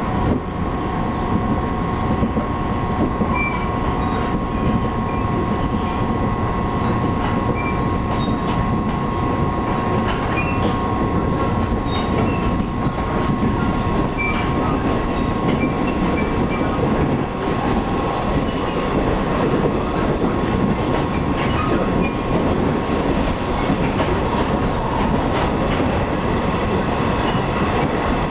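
Taiwan Railways local electric train running between stations, heard from inside the carriage: a steady rumble of wheels on rail with a constant tone through it and light scattered ticks.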